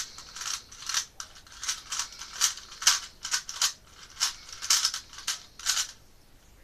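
Plastic 3x3 Rubik's cube layers being turned by hand: a run of about fifteen quick clicking, rattling turns, two or three a second, stopping about six seconds in, as the setup sequence is twisted in.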